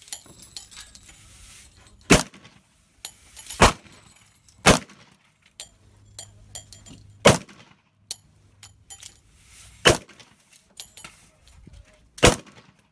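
Semi-automatic pistol fired six single shots at an uneven pace, one to two and a half seconds apart, with fainter clicks and pops in between.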